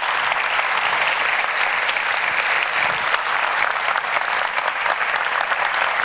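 A large auditorium audience applauding steadily after a talk.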